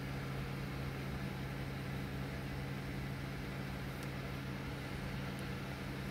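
Steady low hum with an even background hiss.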